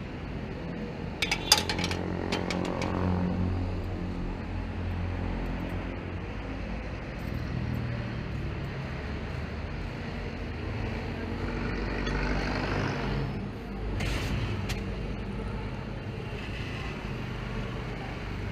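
Motorcycle tricycle engine running on the move, its pitch rising and falling as it speeds up and slows down. A few sharp clicks or knocks come about a second and a half in.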